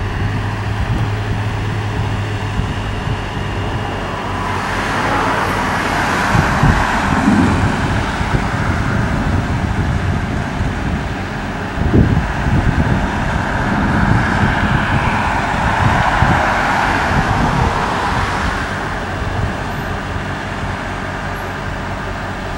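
Cars passing on a road twice, each swelling and fading over several seconds, over irregular low rumbling with a sharp low jolt about halfway through.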